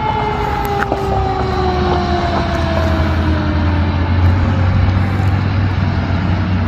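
Emergency vehicle siren on a fire engine or medic unit winding down in one long, slow fall in pitch and fading out over the first few seconds, as the vehicles move off. A low engine rumble grows louder in the second half.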